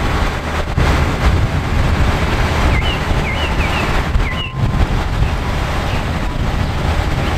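DAF concrete mixer truck's diesel engine running steadily at rest, mixed with heavy wind buffeting the microphone.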